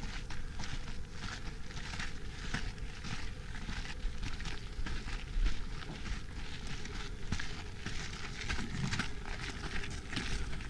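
Running footsteps crunching on a sandy, gravelly trail, a quick irregular patter of strikes over a steady low rumble.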